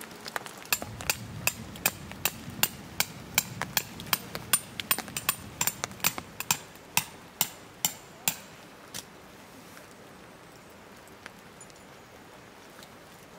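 Metal tent peg being hammered into the ground: about twenty sharp, ringing strikes, a little under three a second, stopping about nine seconds in.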